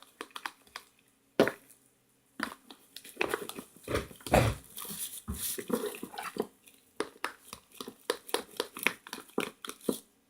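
A spoon stirring a wet, sticky play-doh mixture of flour, shampoo, shaving cream and water in a container: a quick, uneven run of squishes and clicks against the container, with a few louder knocks.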